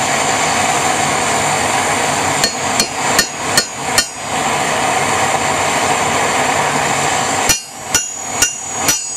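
Hand hammer striking hot rebar on an anvil to flatten the foot of a tong jaw: two bursts of about five ringing blows each, a few seconds apart, with metallic ringing after each blow. A steady rushing noise runs underneath.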